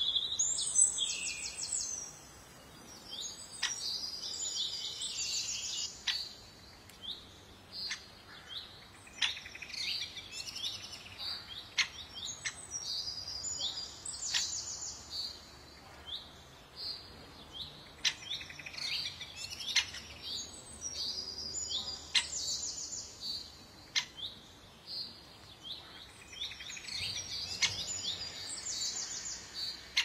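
Small birds singing in repeated bursts of rapid, high trilling phrases, each a second or two long, with sharp short clicks scattered between the phrases.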